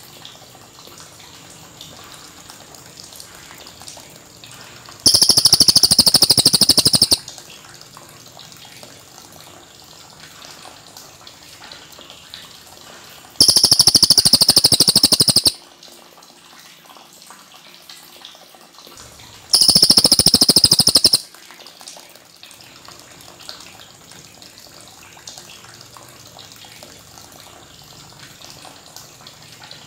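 Cililin (rufous-tailed shama) singing loud, clear, high phrases of about two seconds each, three times, with pauses of several seconds between them.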